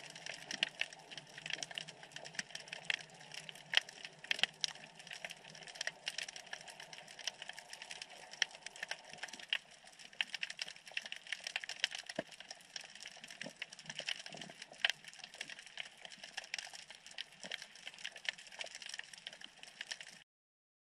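Underwater ambient crackle: a dense, continuous patter of tiny sharp clicks heard through an underwater camera on a rocky seabed. It stops abruptly near the end.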